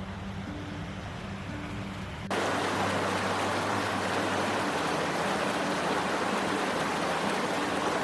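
Quiet music for about two seconds, then a sudden cut to the loud, steady rush of a fast-flowing creek.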